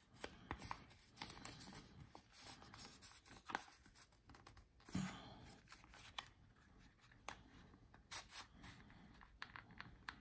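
Faint rustling and rubbing of folded paper banknotes being pushed into the slot of a leather card case, with scattered small scrapes and clicks.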